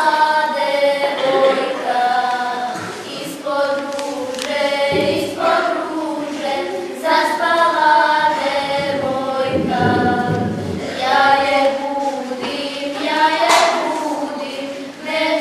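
A group of schoolgirls singing a Serbian folk song together, unaccompanied, in long held notes.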